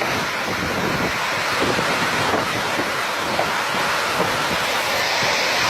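Strong storm wind blowing, a steady rushing noise with gusts buffeting the microphone.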